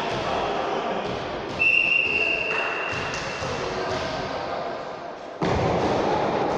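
A referee's whistle blows once, a steady shrill tone lasting about a second and a half, over the echoing din of a sports hall with occasional thuds.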